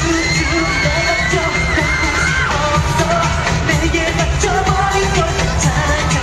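Loud K-pop dance song performed live on stage: sung vocals over a steady, heavy beat.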